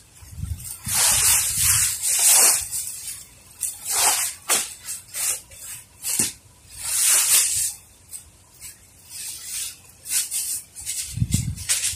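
Plastic bag and woven plastic feed sack rustling and crinkling in irregular bursts as shrimp feed is handled and bagged. There are a few dull thumps near the start and near the end.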